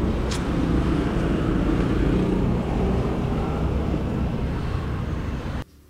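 Steady rumble of vehicle engines and traffic, which cuts off abruptly near the end.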